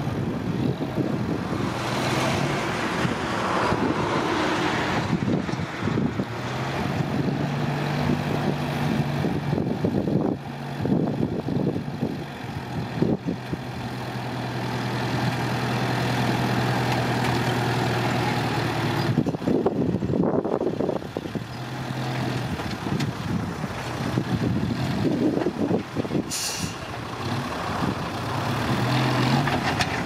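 Engine of a small open-engined dump truck running, its note steady for long stretches and changing as the truck tips its bed to dump soil. There are rougher noisy stretches along the way and a short hiss near the end.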